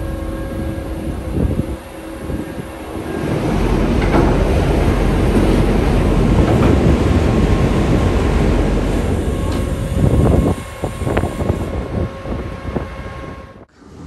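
Ferry machinery rumbling and clattering loudly while the ship docks, louder from a few seconds in and cutting off abruptly near the end.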